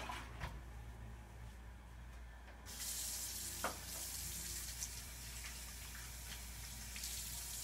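Bathroom sink tap turned on about a third of the way in, water running steadily into the basin as hands are washed under it, with a sharp click shortly after it starts.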